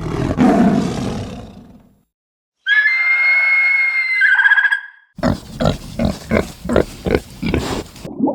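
Three separate animal calls one after another: a low, rough roar lasting about two seconds, a high steady call held for about two seconds, then a rapid series of short grunts at about three a second.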